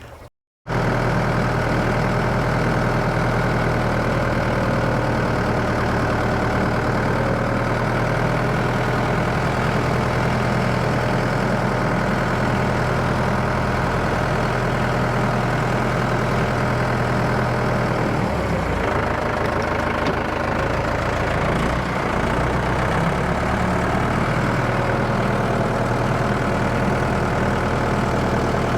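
Farm tractor engine idling with a steady low hum; the engine note wavers and shifts for a few seconds about two-thirds of the way through, then settles again.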